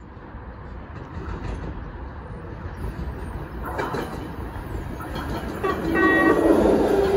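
BART Legacy train with A2 cab cars approaching on the rails, its running noise growing steadily louder with a few clicks of the wheels. A high whine comes in about six seconds in as it nears the platform.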